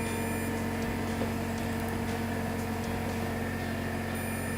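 Steady mechanical hum of background machinery, with a couple of faint clicks.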